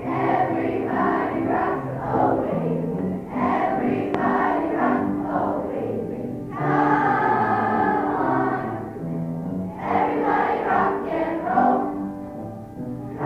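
Children's choir singing a song together in unison, in sustained phrases with brief breaks between lines.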